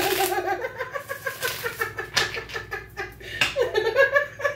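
A woman laughing in long runs of quick, pitched pulses, with a short break about three and a half seconds in.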